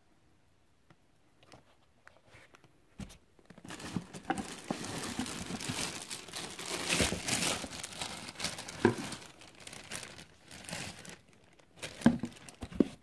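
Clear plastic bag crinkling and rustling as a boot wrapped in it is handled. It starts after about three near-quiet seconds and ends with a few sharp clicks.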